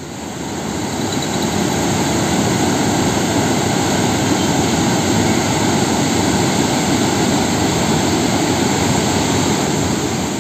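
Floodwater rushing over an open dam spillway and churning down a rocky channel: a loud, steady wash of white-water noise that builds over the first second or so and drops away at the end.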